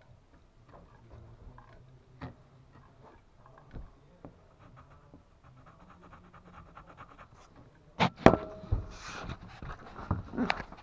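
Pencil scratching along the edge of a floor board, heard close up as a run of quick faint scrapes. About eight seconds in, loud knocks and rubbing take over as the camera is handled and moved.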